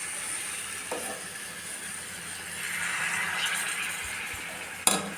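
Gram flour roasting in hot ghee in a pan, sizzling steadily with a slight swell midway. A sharp clink comes near the end.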